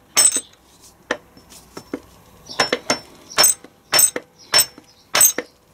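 A mallet repeatedly striking the fifth gear of a Land Rover R380 gearbox to knock it off its shaft: short metallic knocks with a ringing clink, a few light ones at first, then about two a second in the second half.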